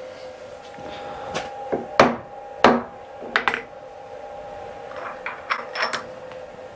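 Metal-on-metal knocks at a milling-machine vise, a workpiece being tapped down onto parallels with a hammer: a few blows about two seconds in, the two loudest ringing on briefly, then lighter clicks and clinks of tools on the vise a few seconds later. A steady machine hum runs underneath.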